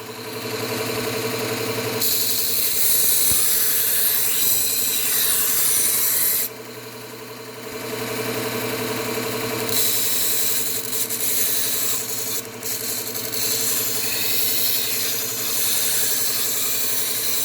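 Belt sharpener motor running steadily while a kitchen knife blade is ground against its 120-grit Cubitron abrasive belt in several long passes with short breaks between, raising a burr along the edge.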